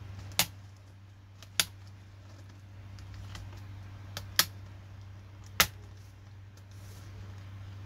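Plastic retaining clips of a Dell Latitude E7440 laptop keyboard clicking as the keyboard's edge is pressed and worked by hand: four sharp, separate clicks spaced a second or more apart.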